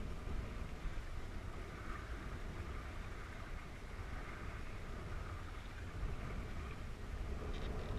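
Wind rumbling on the microphone over a steady rush of water along the hull of a small sailboat under sail.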